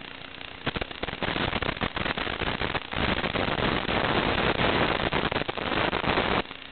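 Crackling static hiss from an analog FPV video link's audio, full of clicks and pops, swelling loud about a second in and dropping back sharply near the end, with the picture breaking up from interference.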